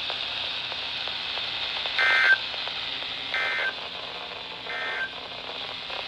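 Midland NOAA weather radio sounding three short, evenly spaced bursts of SAME digital data tones over steady radio hiss: the end-of-message signal that closes an Emergency Alert System warning.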